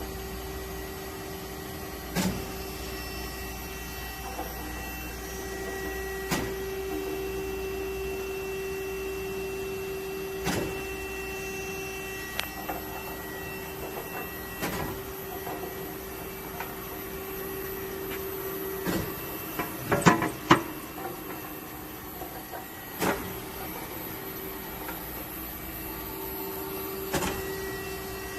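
Grinding machine running with a steady hum, and a sharp knock about every four seconds; a louder burst of knocks comes about two-thirds of the way through.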